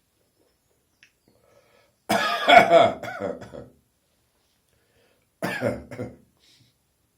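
A person with a summer cold coughing: a fit of coughs lasting about a second and a half, then one shorter bout of coughing about three seconds later.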